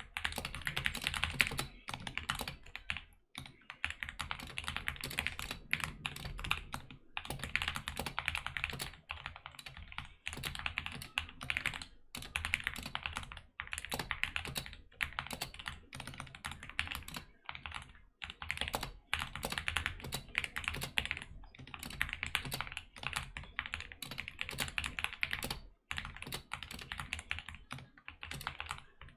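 Typing on a DK61 mechanical keyboard with lubed Gateron optical red linear switches, the case foamed and band-aid modded. Fast, dense keystrokes run in stretches of a few seconds, broken by brief pauses.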